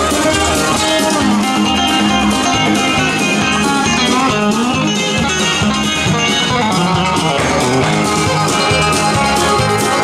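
Country dance music: guitars over a steady beat.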